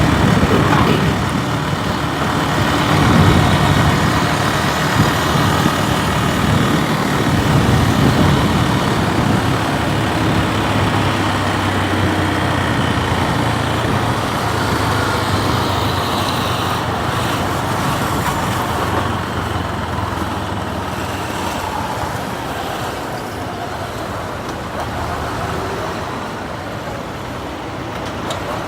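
Motorcycle riding in road traffic: its engine running amid the steady noise of surrounding vehicles.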